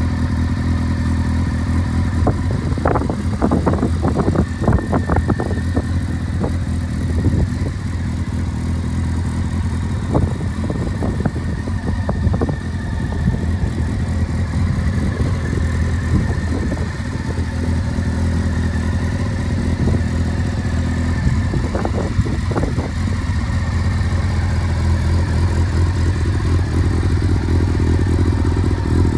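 Honda CBR600F4's inline-four engine idling steadily, with a few faint clicks about three to five seconds in and again around twenty-two seconds.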